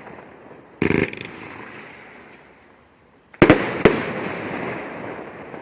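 Red Lantern Elemental Fallout 500-gram fireworks cake firing: a short crackling burst about a second in, then three sharp bangs in quick succession around three and a half seconds in, trailing off in a long fading rumble.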